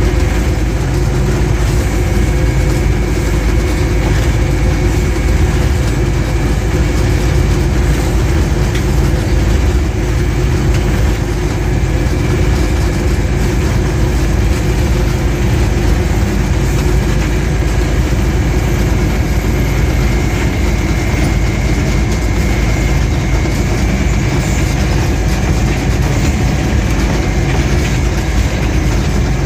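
GE U20 diesel-electric locomotive running along the line, heard from inside the cab: a steady engine drone with the rumble of the wheels on the rails.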